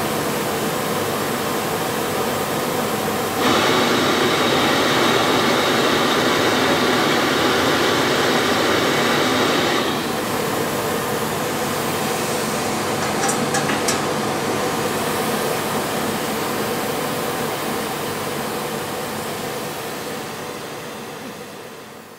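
Steady rushing noise of a gas torch flame used for silver soldering, stepping up louder about three seconds in and dropping back a little before halfway, with a few faint clicks around two-thirds through; it fades away at the end.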